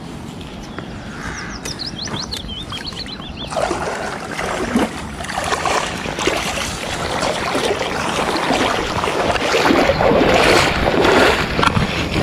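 Angler wading through shallow water and stepping up onto a grassy bank: irregular splashing and rustling that build up and are loudest near the end.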